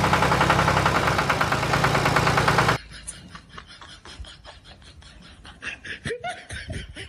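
Truck engine idling, steady and evenly pulsing, that cuts off suddenly about three seconds in, most likely a sound effect laid over the toy-truck scene; after it, only faint clicks and light handling noises.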